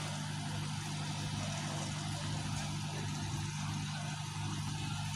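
Steady low engine hum with even background noise, holding the same level throughout, like a diesel engine running at a distance.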